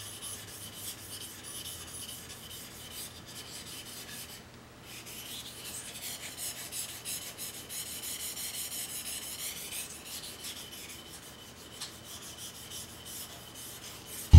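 High-carbon steel knife blade rubbed flat on a 1000-grit Japanese water stone, a quiet gritty scraping in repeated back-and-forth strokes, a little louder through the middle. The flat back of the single-bevel blade is being worked to remove the burr raised by sharpening the bevel.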